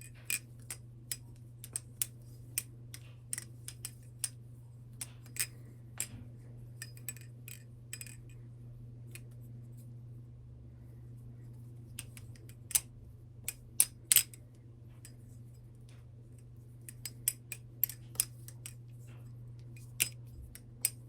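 BRS Alpha Beast butterfly knife (balisong) being flipped: sharp metallic clicks and clacks as the handles swing round and knock together, coming irregularly at about one or two a second. They pause for a few seconds midway, and the loudest come just after the pause.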